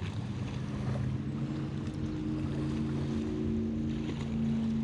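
Boat motor running steadily at low trolling speed, an even low hum.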